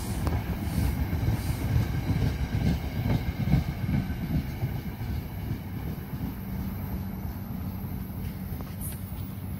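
NJ Transit Comet commuter coaches rolling past on the rails with a steady low rumble. The rumble eases off after the rear cab car passes about four seconds in, as the train pulls away.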